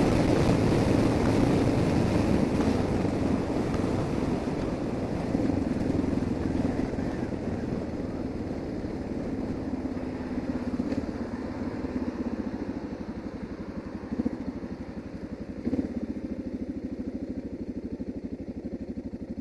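Suzuki DR650's single-cylinder engine running under way, heard through a cheap microphone inside a motorcycle helmet, with wind and road noise. The sound falls off steadily as the bike eases off, and there are two short knocks near the end.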